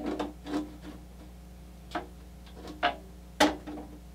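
Powder-coated metal chassis panels of a Caselabs Magnum SMH10 case knocking and clinking together by hand as the chassis top is fitted onto a side panel: about six short, irregular knocks, the loudest about three and a half seconds in.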